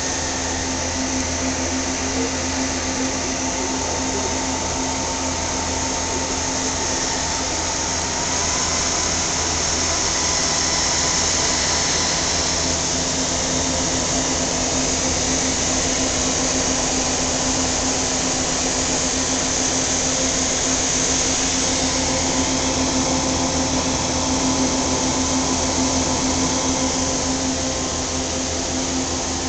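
Cooling fans of rack-mounted servers whirring steadily, with a constant low hum and a faint high whine on top.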